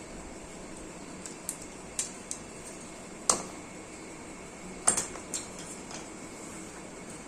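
Scattered sharp metallic clinks and taps, about eight in all, of tools or fittings being handled, the loudest a little over three seconds in, over a steady background hiss.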